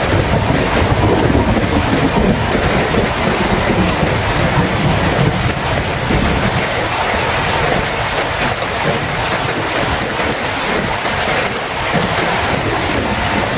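Steady heavy rain, with a low rumble of thunder underneath that fades out by about halfway through.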